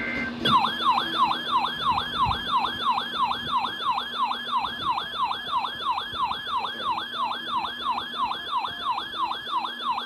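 Emergency alert broadcast. The last of a header's warbling data tones ends right at the start, then about half a second in a loud siren-like attention tone starts, falling quickly in pitch about three times a second and repeating steadily.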